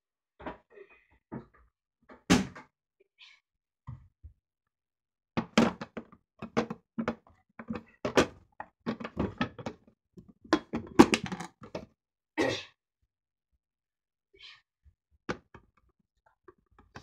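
Kitchen handling noises: irregular knocks, thunks and clatter of things being moved about, a few at first, then a busy run in the middle, then a couple of single knocks.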